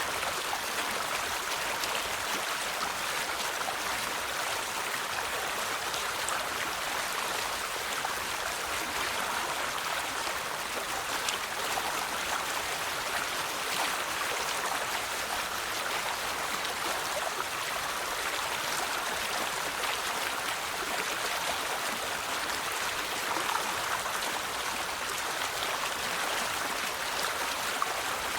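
River water flowing steadily, a continuous rushing babble with small splashes.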